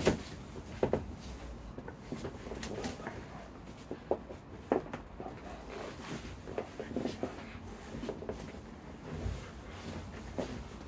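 Two grapplers' bodies moving against floor mats: irregular soft thumps, knocks and scuffing of skin and clothing on the mat, with a sharper knock at the very start and another just under five seconds in.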